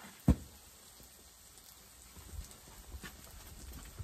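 A single sharp thump about a third of a second in. From about two seconds in, footsteps on grass and sandy ground come closer.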